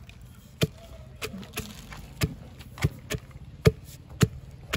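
Wooden pestle pounding oyster nuts in a mortar, crushing the shells: a steady run of dull knocks, about eight strokes, a little under two a second.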